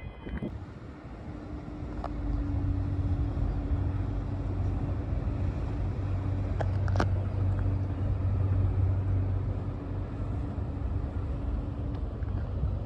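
A steady low engine drone with a constant hum, broken by a few brief clicks, the sharpest about seven seconds in.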